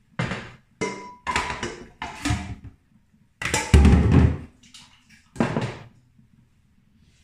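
Raw chicken pieces being tipped from a plastic bowl into a stainless steel pot, with knocks and clatter of the pot and bowl. A series of short bumps, the heaviest thud about halfway through and one more knock near the end.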